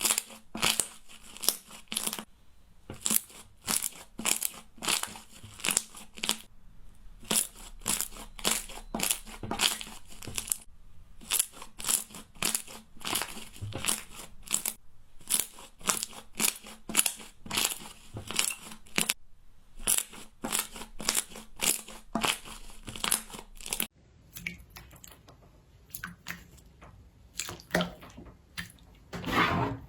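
Crunchy slime being pressed and worked by hand, giving a rapid series of crackling crunches, about two to three a second. About 24 seconds in it changes to quieter, sparser handling sounds, with one louder crunch near the end.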